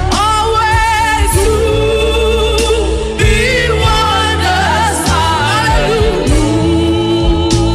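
Gospel worship music: singing with vibrato, held notes, over keyboard chords and bass.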